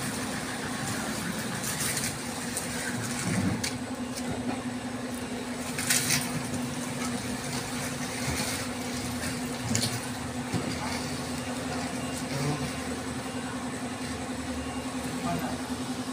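Steady machine hum, like a running engine, throughout, with a few brief knocks and clatter.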